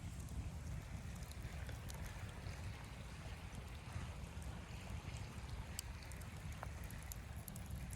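Steady blizzard wind noise with a low rumble, with a few faint scattered ticks.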